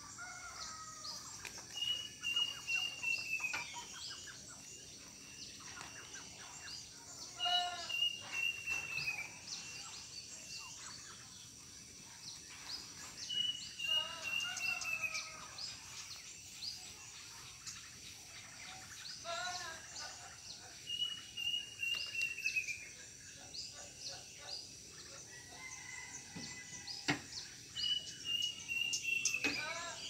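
A cuckoo known locally as the sirit uncuing or kedasih calling: a high whistled phrase that holds and then falls away at the end, repeated about every six seconds. Other birds call in between.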